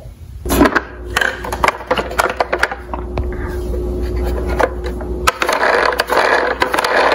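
Plastic toy police cars handled and shifted in a cardboard box: scattered clicks, knocks and scraping over a low steady rumble.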